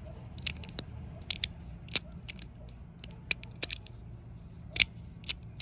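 Kladis3Dstudios Verk, a resin-printed fidget slider with magnets in the corners, being slid back and forth: an irregular run of sharp clicks as the plates snap into place, several a second, with one louder click a little before the end, over a low steady background rumble.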